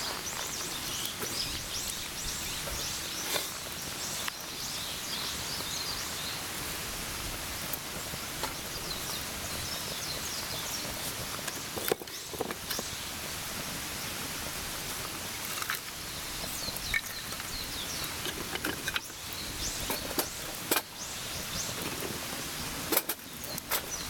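Wood fire of sticks burning briskly in a folding steel Montbell Compact Fire Pit: steady crackling with scattered sharp pops. Near the end a few knocks, as split firewood is laid across the fire.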